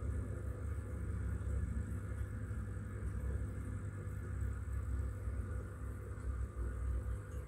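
Steady low hum and rumble of aquarium equipment running, with a faint constant high whine above it.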